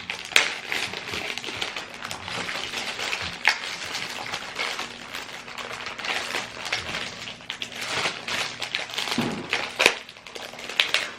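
Shortbread cookie packaging being opened and handled, with continuous crinkling and crackling and scattered sharp clicks, the loudest about a third of the way in and again near the end.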